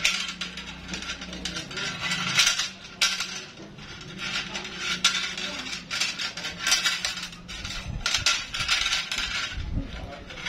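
Flat steel recoil-starter spring of a Yamaha 40 hp outboard motor being coiled by hand into its metal starter housing, with irregular metallic clinks and scrapes as the coils slide against each other and the housing.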